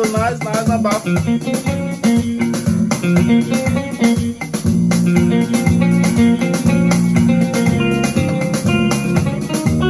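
Yamaha PSR-E473 portable keyboard played with a guitar voice: plucked guitar-like chords and melody over a steady bass line.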